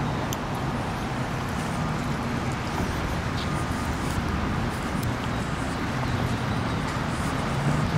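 Steady low engine hum under a constant rushing noise, unchanging throughout.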